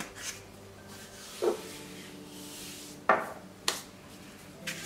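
Spice containers handled over a glass mason jar on a kitchen counter: about five light knocks and clicks as a paprika container is capped and set down and a salt container picked up, one knock with a short ring, and a soft rustle near the middle.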